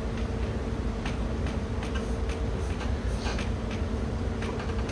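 Chalk tapping and scratching on a blackboard as figures and lines are written: short, irregular taps a few times a second over a steady low room hum.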